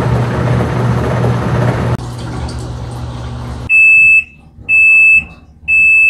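Black+Decker portable washing machine running with a steady low hum and water noise, which stops a little over halfway through. Its end-of-cycle alert then beeps three times, high single-tone beeps about a second apart, signalling that the wash is finished.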